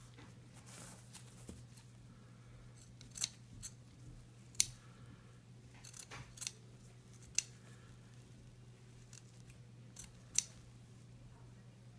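Angled bandage scissors snipping through soft cast padding, about six short sharp cuts spaced a second or two apart, over a steady low hum.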